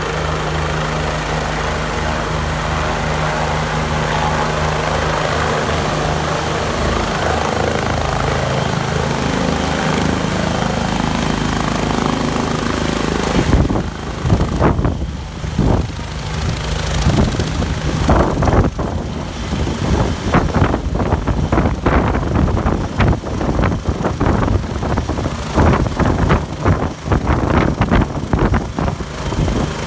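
Helicopter with a four-bladed main rotor hovering and then landing. For the first half it is a steady turbine and rotor drone; about halfway through it turns choppy and gusting as the machine comes in low over the pad, facing the microphone, and settles onto its skids.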